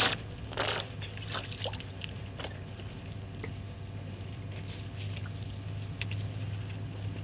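African elephant drinking at a waterhole: water splashing and pouring from its trunk in two short noisy bursts near the start, then a few faint drips and clicks.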